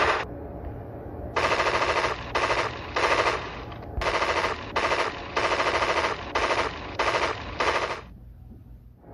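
Film sound effect of automatic gunfire: a long burst cutting off just after the start, then about nine short bursts of rapid fire over the next six seconds.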